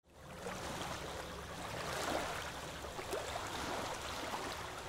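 Steady rushing noise with a low rumble underneath, even throughout.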